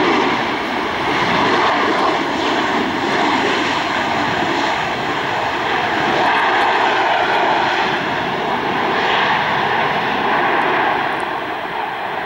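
Airbus A319's CFM56 turbofan engines running loud as the airliner rolls along the runway: a steady rushing noise with whining tones over it, easing off near the end.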